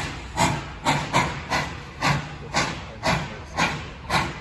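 Narrow-gauge NA-class steam locomotive's exhaust chuffing in a steady rhythm, about two beats a second, as it works under steam while shunting.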